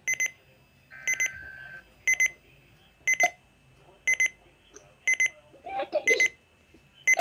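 Weather alert radio's alarm beeping: a high, sharp double beep repeating about once a second, set off by an incoming weather-service alert. A quieter steady tone sounds briefly under the second beep.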